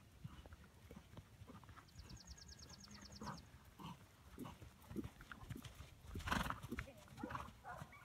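A ridden horse's hooves thudding softly on an arena's sand footing in a steady gait. A short, loud burst of noise comes about six seconds in.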